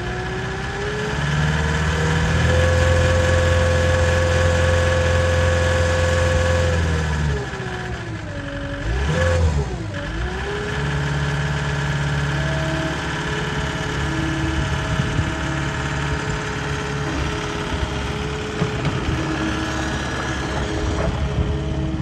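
Cat 242D skid steer's diesel engine revving up over the first couple of seconds, held at high speed for about five seconds, then dropping back. Its pitch dips sharply and recovers about halfway through, and it then runs steadily at a lower speed.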